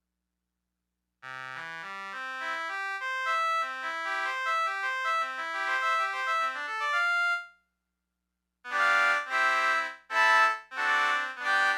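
Yamaha PS-20 portable keyboard being played. About a second in, a quick run of single notes winds up and down for about six seconds. After a second's pause, short repeated chords begin.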